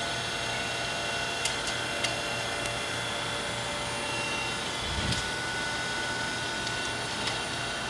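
Okamoto 820A hydraulic surface grinder running with its grinding wheel spindle and hydraulic pump on: a steady motor hum with a constant whine. A few light clicks and a short low thump about five seconds in.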